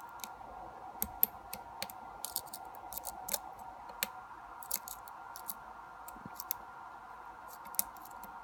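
Lock pick and tension wrench ticking irregularly inside a lock's core during single-pin picking, small sharp clicks as pins are probed and set, over a faint steady hum.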